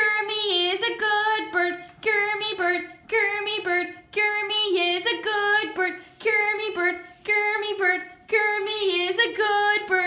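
A high female voice singing a short sing-song ditty to the bird, repeating its name ('Kermy bird, Kermy bird'), in short phrases of about a second with brief pauses between them.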